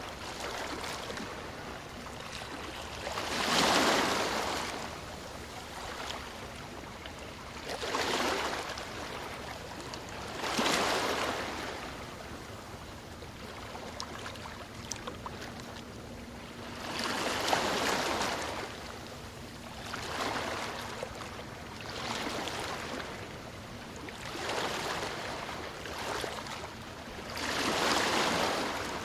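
Ocean waves breaking and washing up the shore, a surge every few seconds over a steady hiss of surf, some breakers much louder than others.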